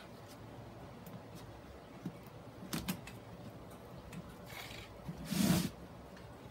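Handling noise from gloved hands working fishing line over a sphagnum-moss mount on a plastic mesh board: a few short clicks near three seconds in, then a brief rustling scrape about five and a half seconds in.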